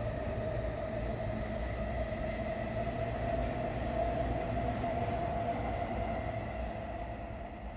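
A steady mechanical rumble with a constant whine running over it, swelling a little and then fading near the end, as of something passing by.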